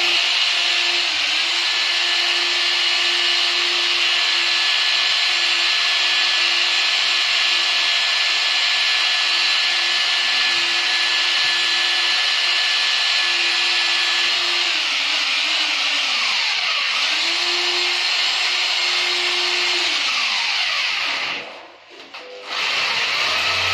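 Corded power drill running steadily as it bores into a ceramic-tiled wall, its motor note dipping now and then under load. It stops briefly near the end, then starts again.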